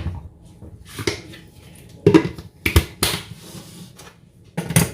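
Several sharp clicks and knocks, about six spread over five seconds, from a plastic Moulinex chopper cup being handled.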